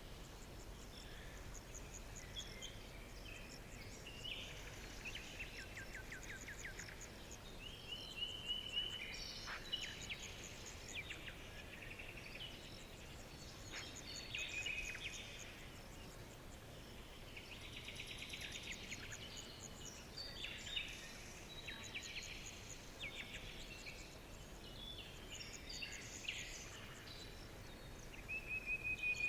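Several songbirds chirping and singing at once: short chirps, quick trills and whistled notes overlapping one another, over a faint steady background hiss.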